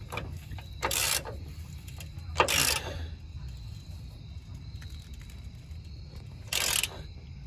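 Hand socket ratchet clicking in three short bursts as it is swung back between pulls, snugging up a differential drop-kit mount bolt.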